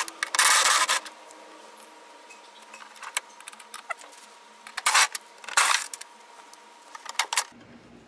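A cordless impact driver runs briefly, backing out the bolts of a car door's window guide rail, followed by a few short metal clinks and scrapes as the rail is worked out of the door.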